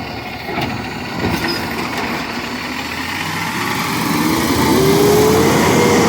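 Recycling garbage truck's engine running close by, growing louder and revving up with a rising whine over the second half.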